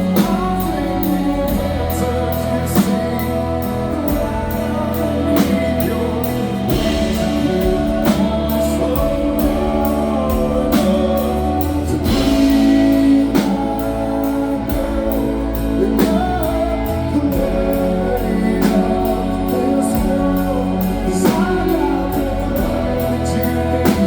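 Live band playing a slow waltz, with guitars and a strong accent about every two and a half seconds.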